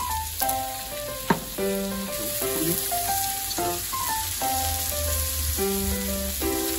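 Sliced meat sizzling on a round yakiniku grill plate, a steady crackling hiss, with a background music melody over it and one sharp click about a second in.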